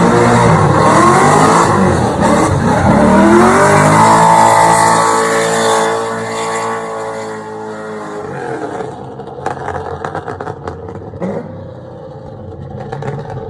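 Corvette V8 engine revving hard, its pitch sweeping up and down and then held high and steady for a few seconds before falling away about eight seconds in. After that it runs quieter, with scattered short clicks.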